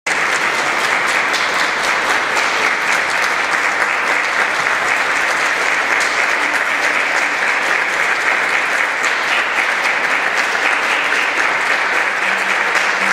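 Concert audience applauding steadily, many hands clapping at once with no let-up.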